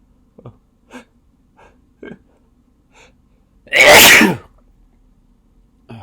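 A person's single loud induced sneeze about four seconds in. Before it come a few short, faint breath sounds.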